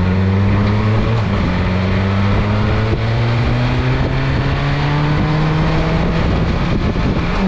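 BMW S 1000 RR inline-four engine running at steady revs, its pitch easing slowly down.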